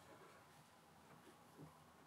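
Near silence: room tone, with one faint soft knock about one and a half seconds in.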